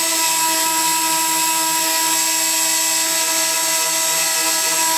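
High-speed Wolfgang Engineering spindle on a CNC router running steadily, its fine engraving bit cutting isolation traces into a copper-clad circuit board. It makes an even whine of several steady tones that holds unbroken throughout.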